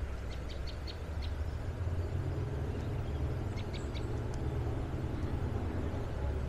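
Steady low outdoor rumble with two quick runs of high bird chirps, one just after the start and one about three and a half seconds in.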